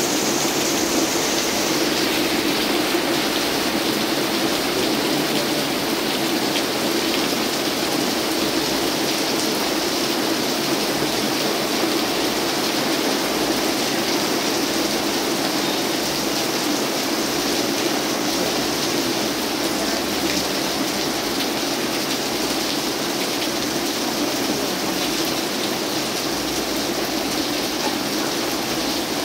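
Heavy rain falling steadily, a dense even hiss of pouring rain.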